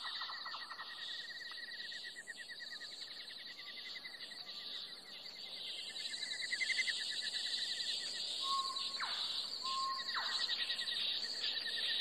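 Backyard ambience: insects trill steadily with a rapid pulse, and in the second half a few short bird calls sound, two of them quick downward-sweeping notes.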